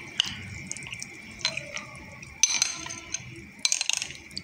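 A metal spoon stirring a cornflour-and-water slurry in a glass bowl: wet swishing with a few sharp clinks and a short scrape of the spoon against the glass. A faint steady high whine runs underneath.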